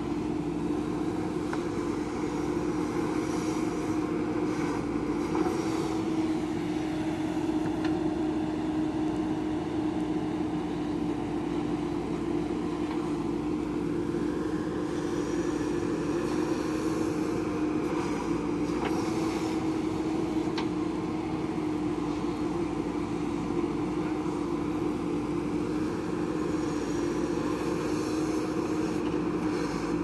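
JCB 3DX backhoe loader's diesel engine running steadily under hydraulic load while the backhoe digs soil and swings it into a dump truck, a constant drone whose pitch rises and dips slightly as the arm works.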